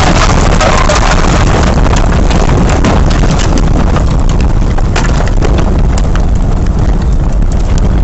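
Tornado winds blasting against the microphone, loud and steady, with a rapid, irregular clatter of many sharp knocks and impacts throughout, typical of debris and hail striking a house.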